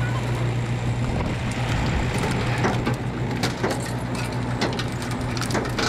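An engine running steadily with a low hum. From about two seconds in, a run of sharp metallic clicks and knocks comes from parts being handled at the wrecked truck front.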